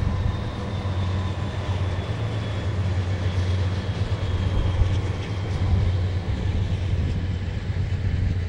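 Diesel-powered train running, with a steady low engine drone and thin high whining tones above it.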